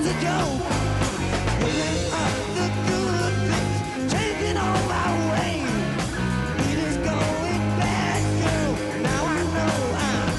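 A hard rock power trio playing live: electric guitar, bass and drums, with a lead line that bends and slides in pitch over a steady low riff.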